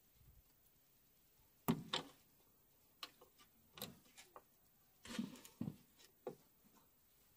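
Scattered clicks and knocks of a brake hose's metal end fitting being handled and seated into its bracket, the loudest pair about two seconds in and a cluster around five seconds.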